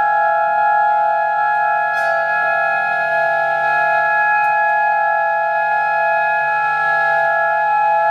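Experimental music: a clarinet, with live electronics, holds a steady chord of several tones that barely change, a sustained drone.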